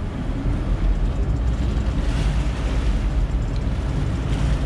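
A boat's engine runs with a steady low rumble, water churning at the stern.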